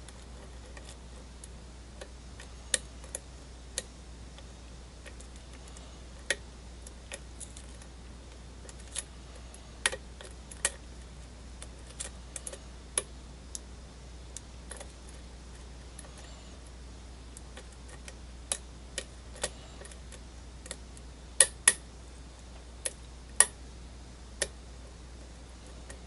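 Irregular sharp clicks and ticks of a thin lock pick working the pins of a brass half Euro cylinder held under tension. The cylinder is held in a false set, and the pins click as they are lifted and set.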